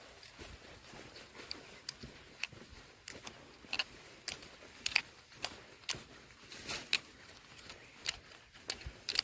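A person's heavy breathing mixed with irregular rustles and sharp clicks, about one or two a second, with a longer swell of noise about seven seconds in.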